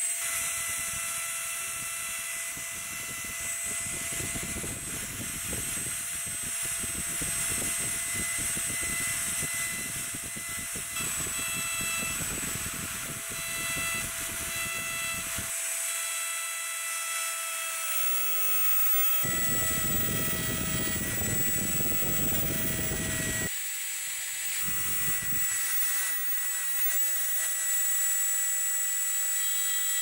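Dremel rotary tool running at a steady high whine while its diamond bit grinds into the metal case of a Zippo lighter, engraving it. The scratchy grinding comes in long stretches and drops out for a few seconds about halfway and again near the end, while the motor keeps whining.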